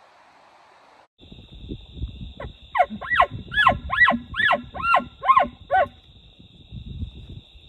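A wild animal giving a quick series of about eight sharply falling yelps, a few seconds long, over a steady high whine.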